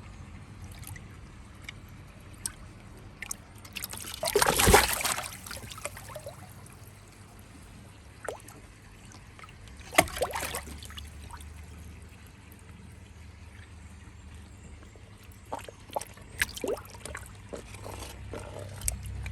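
Water splashing and trickling around a koi taken out of the pond, with one bigger splash about four seconds in, a sharp knock near the middle, and scattered small clicks near the end.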